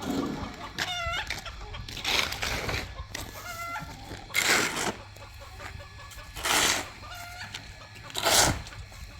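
Chickens clucking a few short calls, with a louder noisy rasp repeating about every two seconds.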